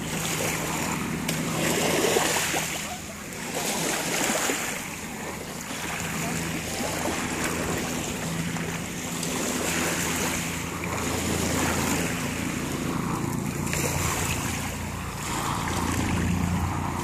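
Small waves lapping at the shoreline, with wind gusting on the microphone, over a low steady hum from a distant engine.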